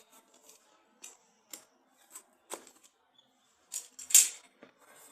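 Scattered light clicks and taps from handling a smartphone and its unboxing contents, at uneven intervals, with the loudest clatter about four seconds in.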